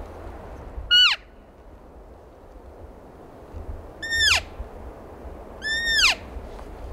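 Cow elk mewing: three short, high-pitched calls, each falling steeply in pitch, about a second in, about four seconds in, and near the end, the last one rising briefly before it falls.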